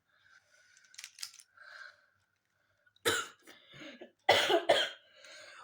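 A boy coughing twice, hard, about three seconds in and again a second or so later: coughs from a cold. Faint clicks come before them.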